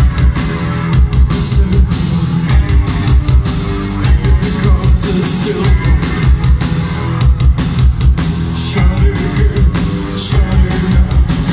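Live rock band playing loudly through a club PA: a steady drum beat with kick and snare under guitars, bass and keyboard, with singing over it.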